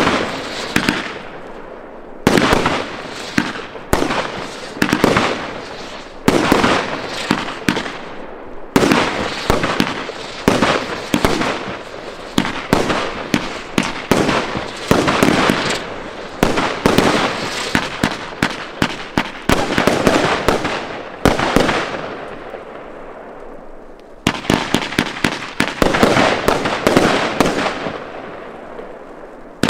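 Aerial fireworks bursting overhead: a dense run of sharp bangs and crackles in volleys every second or two, each dying away in an echoing tail.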